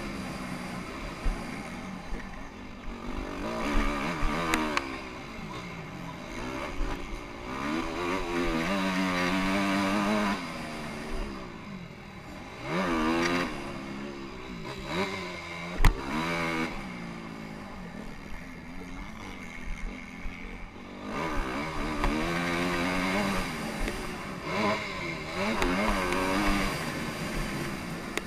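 Honda CRF250R's single-cylinder four-stroke engine revving up and falling back again and again as the bike is ridden hard over motocross jumps and through turns, with a sharp knock about sixteen seconds in.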